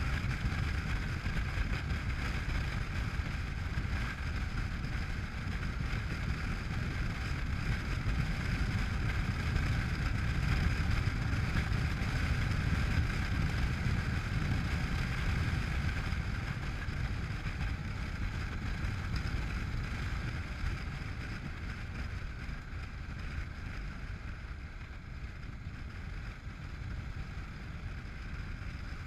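Honda NC700X parallel-twin motorcycle engine running at steady road speed, mixed with wind rushing over the microphone. It gets a little quieter about two-thirds of the way through.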